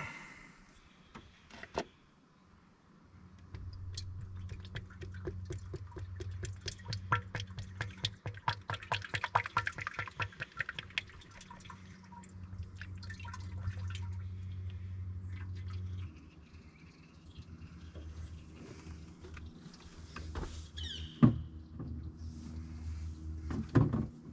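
Motor oil pouring from a plastic jug through a funnel into a Jeep Cherokee XJ engine's oil filler, refilling the engine after an oil change. It starts a few seconds in with rapid gurgling, eases off past the middle, and a couple of sharp knocks come near the end.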